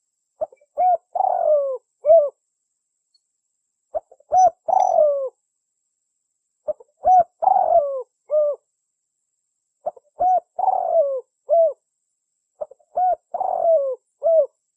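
Spotted dove cooing: five repeated phrases, each a couple of short coos, then a longer coo falling in pitch and a final short note, with a pause of about a second between phrases.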